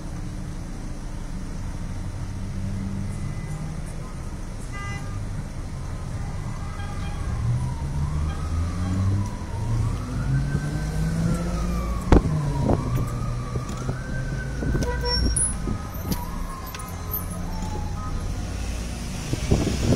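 Road traffic heard from inside a car, engines running low and steady, while an emergency vehicle's siren wails up and down for several seconds in the middle. A single sharp knock comes about twelve seconds in.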